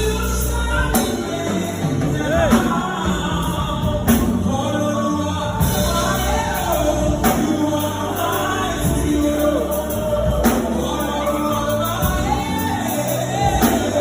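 Gospel worship music: singing over instrumental backing.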